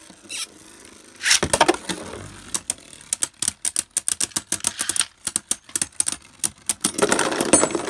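Two Beyblade Burst spinning tops clashing in a plastic stadium. There is a sharp clatter about a second and a half in, then a rapid, irregular run of clacking hits as the tops knock together, thickening into a continuous rattle near the end.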